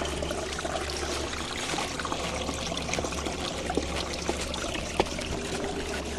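Running water trickling steadily over rock, with a few faint taps, one clearer about five seconds in.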